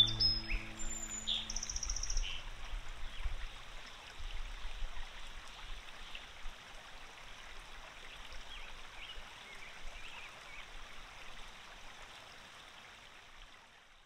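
Birds chirping here and there over a steady outdoor rush of noise, all fading slowly away; soft music dies out in the first two seconds.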